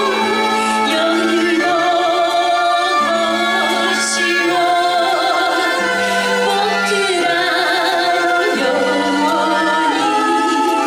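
Two women singing a duet live into handheld microphones, their voices amplified, with held low accompanying notes underneath.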